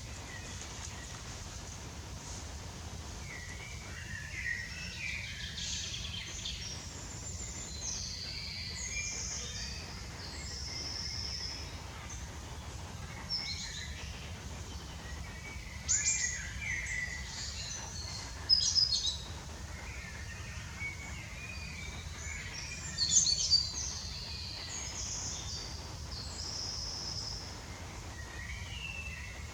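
Several birds calling and singing in a mix of short, varied high notes, with a few sharp, louder calls about halfway through. A steady low background rumble runs underneath.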